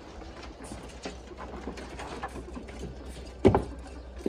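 Light clicks and rattles of wooden cage frames and wire mesh as raw meat is handed out to ferrets, with one louder thump about three and a half seconds in.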